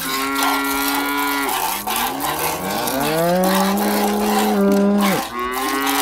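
Dairy cows mooing: several long, drawn-out moos, two of them overlapping in the middle, with the pitch rising at the start of the calls.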